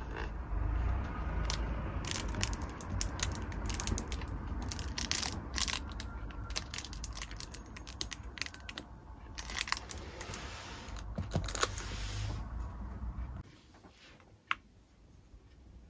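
Hands working with paper and plastic stationery or packaging: quick crisp clicks, crackles and crinkles over a steady low hum, all stopping abruptly about 13 seconds in and leaving only a few faint ticks.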